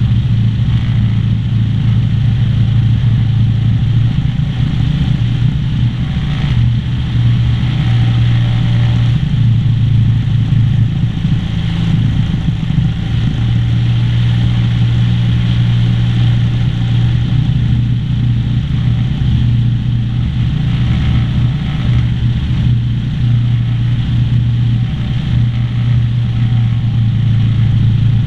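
Cessna 152's four-cylinder Lycoming O-235 engine and propeller running steadily at low power, heard from inside the cockpit.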